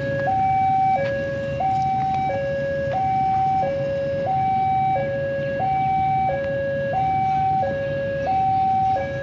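Level-crossing warning alarm sounding a steady two-tone electronic signal, a higher and a lower note alternating about every two-thirds of a second. It signals that the crossing is closed and a train is approaching.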